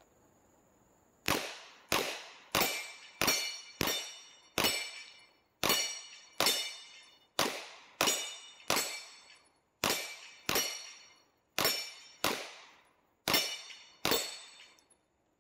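Suppressed Glock 17 Gen 4 firing about eighteen shots at an uneven pace, roughly one or two a second, into swinging steel targets. Each shot is followed by the brief high ring of the struck steel.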